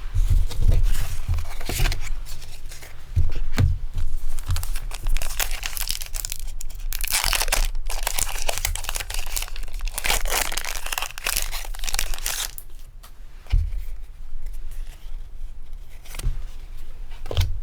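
A foil Pokémon booster pack wrapper being torn open and crinkled by hand, in crackling bursts that are loudest in two spells around the middle, with some low handling bumps near the start.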